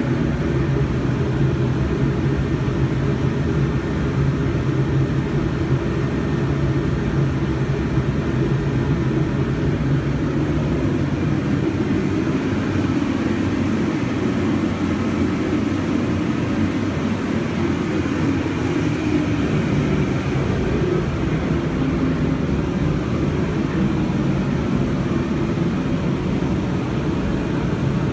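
ATV engine running steadily, a continuous low drone that shifts slightly in tone about a third of the way through.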